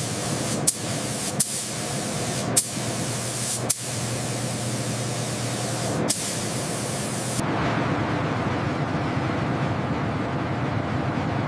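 Steady hiss of paint being sprayed through rotary atomizers, broken by several sharp clicks. About seven seconds in, the hiss cuts off and a lower steady machine rumble carries on.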